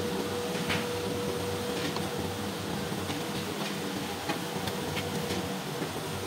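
Foundry shop background noise: a steady mechanical hum with scattered light clicks, and a steady high tone through the first half.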